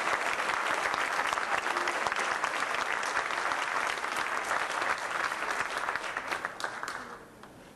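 A large crowd applauding, a dense clapping that dies away quickly near the end.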